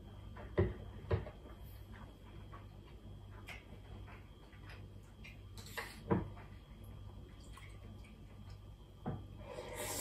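A person eating udon noodles with chopsticks: short slurps of the noodles, about 6 seconds in and again near the end, with a few light knocks of chopsticks and bowls on a wooden table. A low steady hum runs underneath.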